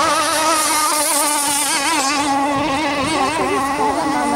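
Radio-controlled model speedboat running at speed, its small motor giving a high, buzzing whine at high revs that wavers up and down in pitch.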